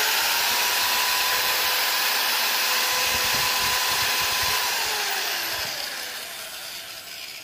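A 125 mm (5-inch) OMXE marble cutter, a handheld 1450 W, 14,000 RPM saw, running free at full speed, not cutting, with a steady high whine. About four and a half seconds in it is switched off and winds down, its pitch falling and the sound fading.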